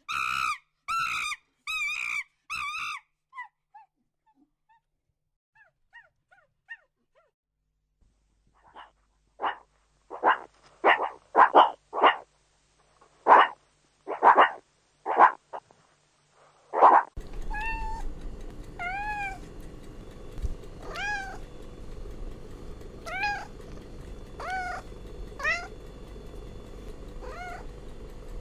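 Cats meowing. A quick run of short calls comes first, then a series of loud meows, then repeated rising-and-falling mews over a steady background hiss.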